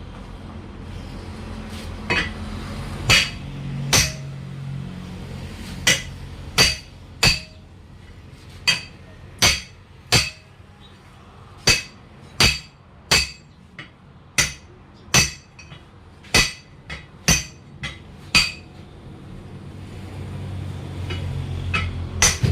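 A hammer striking metal about twenty times, each blow sharp and ringing, at an uneven pace of roughly one to two blows a second, pausing for a few seconds before a last pair near the end; this is typical of hammering on a truck wheel rim and tyre bead during a tyre change.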